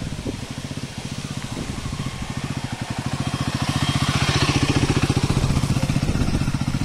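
Motorcycle engine running at low revs as it climbs a muddy trail and passes close by, getting louder about halfway through, with a hiss as it goes past.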